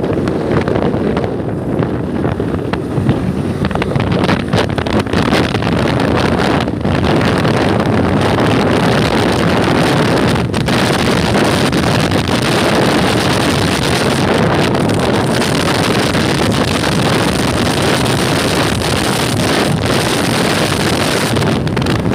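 KTM RC 390's single-cylinder engine running hard at high road speed, almost buried under steady wind rushing over the microphone.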